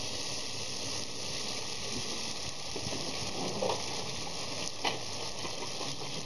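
Mustard sizzling steadily in hot olive oil in a frying pan, with a couple of light clicks in the second half.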